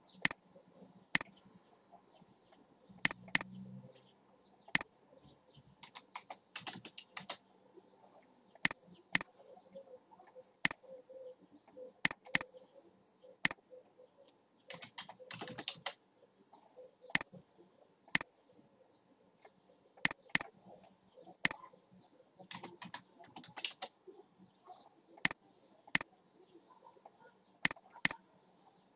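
Computer mouse clicking and a keyboard being typed on: sharp single clicks every second or so, with a few short runs of quick keystrokes.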